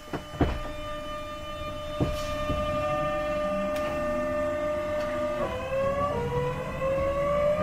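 Class 465/9 Networker electric train's GEC Alsthom GTO-VVVF inverter and traction motors starting to pull away. Two knocks in the first half second are followed by a steady whine. About five and a half seconds in, the whine drops in pitch, and a cluster of tones starts rising as the train gathers speed.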